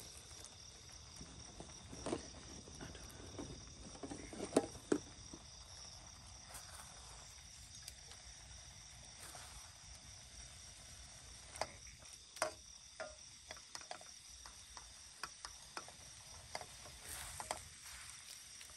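A silicone spatula scraping and knocking against a steel wok and plate as food is scooped out, in scattered short clicks, loudest about four seconds in and again around twelve seconds. Behind it, a steady chirring of crickets.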